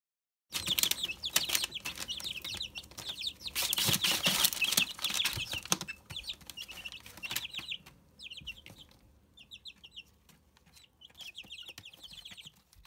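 Young domestic chickens, about four weeks old, peeping in quick runs of short high chirps, with many sharp clicks and rustles among them. It starts about half a second in, is loudest for the first several seconds, and grows quieter and sparser after about eight seconds.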